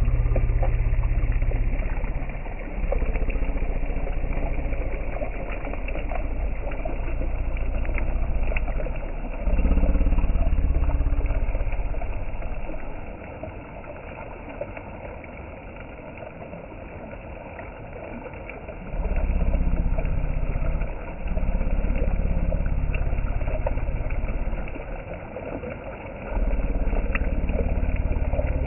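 Shallow river rushing over stones, a steady wash of water noise. Gusts of low rumble from wind on the microphone come and go, dropping away for several seconds midway.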